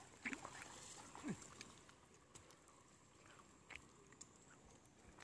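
Near silence: faint outdoor background with two short, faint calls falling in pitch in the first second and a half, then a few faint ticks.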